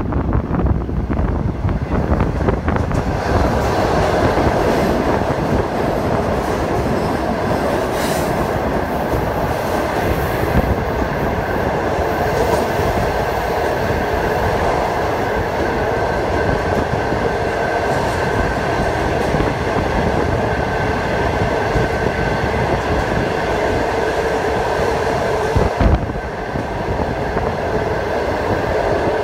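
Passenger train carriage running on the track inside a tunnel, a loud steady rumble of wheels and rails that swells and thickens about three seconds in as the train enters the tunnel, with a faint steady ringing tone above it. A single sharp knock comes near the end.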